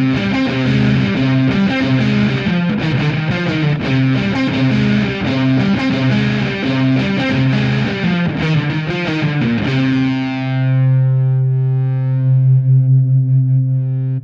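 Distorted electric guitar from the Shreddage 3 sample library, played live from a MIDI keyboard: a fast riff of short, even notes, then about ten seconds in a held chord that rings out with a wavering level.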